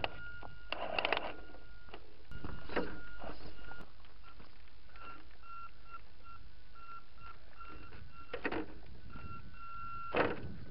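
Tamiya CC-01 radio-controlled crawler's electric motor whining as a high steady tone while it is throttled up a rock, the whine coming in short repeated pulses during the second half as the throttle is blipped. A few sharp knocks come from tyres and chassis against the rocks; the loudest are one about eight seconds in and one near the end.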